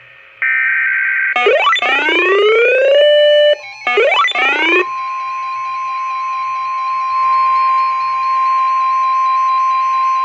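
Emergency Alert System tones: a short digital data burst, then two rising multi-tone glides, then a steady single tone near 1 kHz from about five seconds in, the attention tone that opens the next weather alert.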